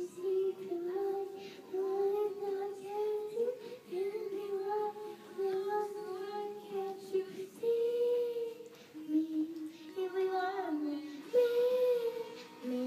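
A young girl singing a melody in held notes, phrase after phrase with short breaks.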